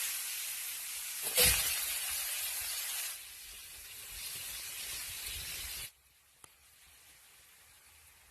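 Food sizzling as it cooks: a steady hiss that surges louder about a second and a half in, drops lower around three seconds, and cuts off abruptly near six seconds, leaving only a faint hiss.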